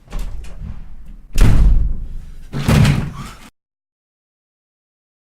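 A door being handled and shut hard: rattling, then two loud bangs about a second apart. The sound then cuts to dead silence.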